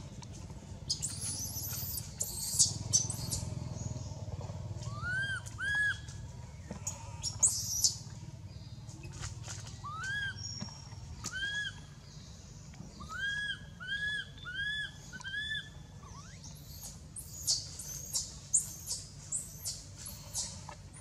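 Infant long-tailed macaque crying: short arched squeals that come in quick runs, with sharper, higher shrieks in short bursts a second or two in and again near the end.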